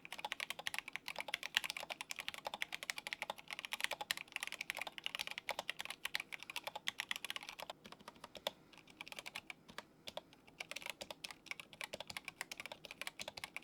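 Rapid typing on a mechanical keyboard, in two runs: a louder clacking run, then after a short pause a softer run. This is a sound comparison of stock switches against switches with rubber O-rings under the keycaps, which damp the keycap bottoming out on the switch.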